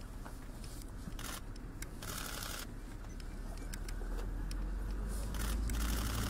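Scattered camera-shutter clicks and brief rustling of clothing among a small group shaking hands, over a steady low rumble that grows louder near the end.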